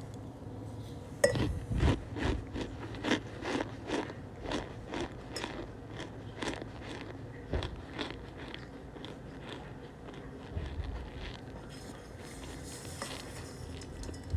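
Cornstarch being crunched and chewed: a run of crisp, sharp crunches, about two a second, that thins out after about eight seconds.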